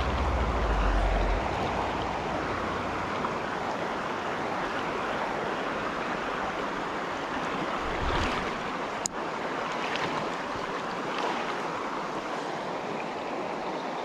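Steady rush of a shallow, rocky stream flowing around the wader, with wind buffeting the microphone in the first second or so and briefly again about eight seconds in. A single sharp click about nine seconds in.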